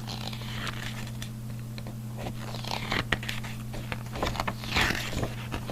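Paper rustling and handling of a kit instruction manual as its pages are turned, with scattered light clicks and swishes over a steady low hum.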